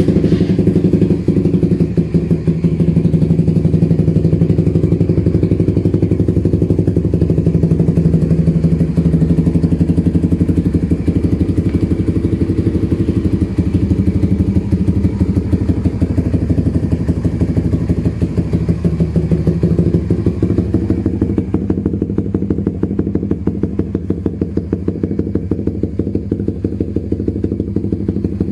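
Suzuki Raider 150 Fi single-cylinder four-stroke engine, just started, idling loudly through an HGM aftermarket pipe with its silencer removed, with rapid, even exhaust pulses. About 21 seconds in, the sound turns slightly quieter and duller.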